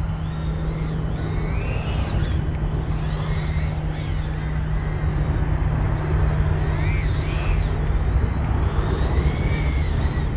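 The BetaFPV Nebula 85x whoop's 1105 brushless motors and ducted props whining in flight, the pitch gliding up and down again and again as the throttle changes.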